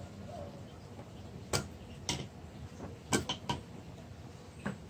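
Pliers clicking on the valve stems and aluminium cylinder head as old rubber valve stem seals are pulled off: sparse sharp metal clicks, with a quick run of several about three seconds in.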